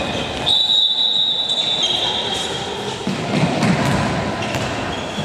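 Handball match play on a wooden sports-hall floor: scattered knocks of the ball and feet on the floor, with long, steady high-pitched squeals held for a second or more.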